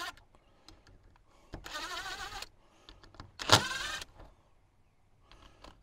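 Cordless drill run in short bursts to back out the screws holding the plastic pump head of a Shurflo RV water pump. There are two runs about two seconds apart, each with the motor whining up in pitch.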